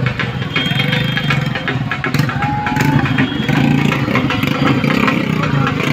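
Several motorcycle engines running close by in slow, dense traffic, steady throughout, with bits of clatter.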